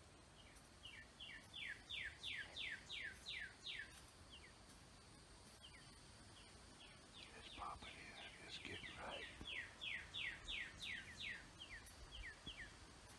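A songbird singing two runs of quick down-slurred whistles, about three a second, the second run starting about seven seconds in, with a couple of lower calls mixed in near the middle.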